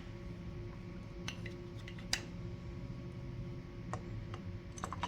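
A few light, scattered clicks and taps of plastic reloading-press case feeder parts being handled, over a faint steady hum.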